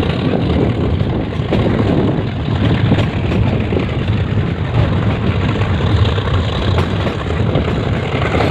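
Metre-gauge passenger train running: a steady, loud rumble with a few faint clicks.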